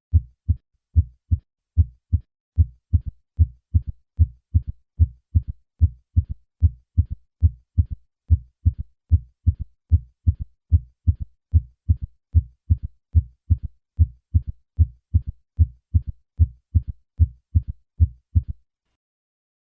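A heartbeat heard through a stethoscope with a third heart sound: low-pitched, dull thumps in a steady galloping rhythm, where a faint extra sound follows the second heart sound early in each diastole (the 'Ken-TUCK-y' cadence). It stops shortly before the end.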